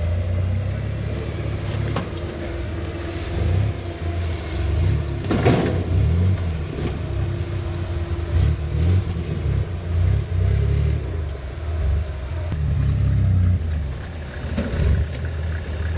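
Rock crawler engine revving up and down repeatedly as the rig climbs over rocks, with a few knocks and clatters from the rocks and drivetrain.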